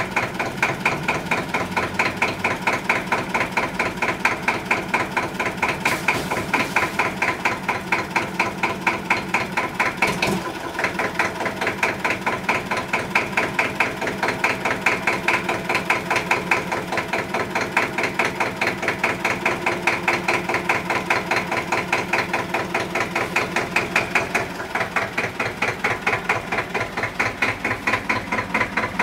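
Air-cooled Deutz diesel tractor engine running under load with a steady, even pulsing beat as it drags a heavy stone well cover upright by a bar and cable. About 25 seconds in the beat drops to a slightly lower, quieter note.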